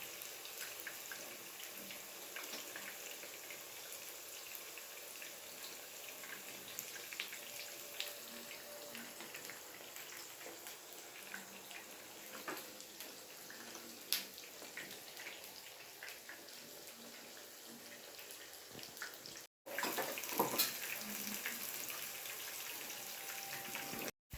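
Spiced minced-chicken cutlets sizzling in hot oil in a pan, a steady hiss with many small crackles. It gets louder and crackles more after a brief break near the end.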